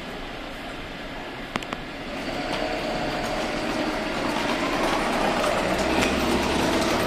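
A vehicle's running noise, a low rumble with a faint steady whine on top, growing louder from about two seconds in.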